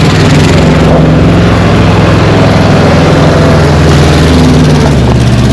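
A vehicle engine running loud and close with a steady low hum; its pitch shifts up slightly near the end.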